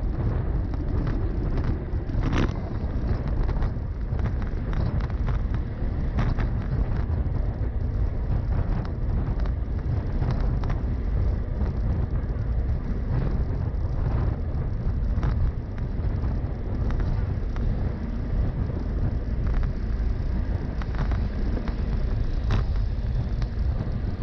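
Steady, heavy wind rumble on the microphone of a camera riding along on a bicycle, with scattered clicks and rattles throughout and a sharper knock about two seconds in.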